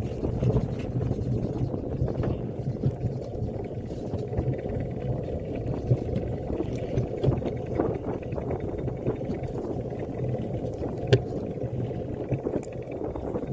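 Luge cart rolling down a concrete track: a steady rumble of its wheels on the concrete, with an occasional sharp knock as the cart jolts.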